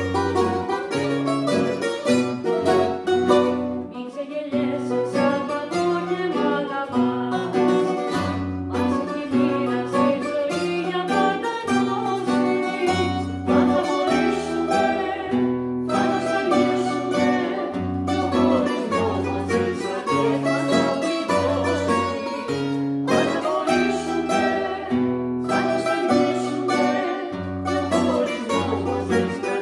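Acoustic guitar and two bouzoukis playing a Greek song together, with quick plucked bouzouki lines over a strummed guitar and a moving bass line.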